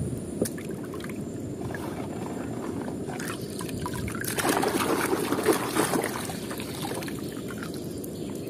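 Muddy water in a plastic tub splashing and dribbling as a toy car is dipped into it and lifted out by hand, with a louder stretch of splashing about four to six seconds in.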